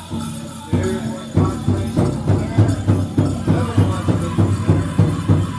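Powwow drum group singing a chicken dance song over a steady drumbeat, which comes in hard about a second in and holds a quick, even pulse.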